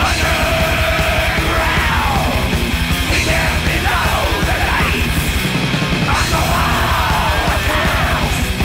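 Thrash metal recording: fast, pounding drums and distorted guitars, with high wailing lines sweeping up and down over them.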